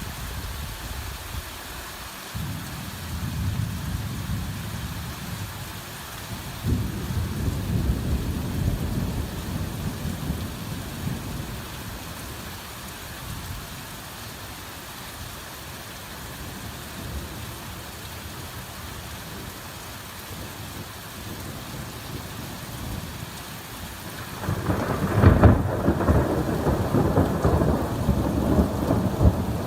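Heavy rain falling steadily, with low rumbles of thunder that swell and fade; the loudest rumble starts near the end.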